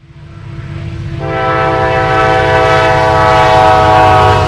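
Diesel freight locomotives' air horn sounding one long, loud chord of several notes from about a second in until the end, over the low, pulsing rumble of the locomotive engines; the sound fades up from silence at the very start. The horn is sounded for a road grade crossing.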